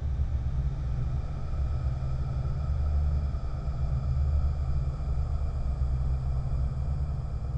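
Horror ambience drone: a deep, steady low rumble with faint high tones held above it.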